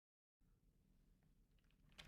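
Near silence: dead quiet at first, then faint room tone with a few tiny ticks from about half a second in.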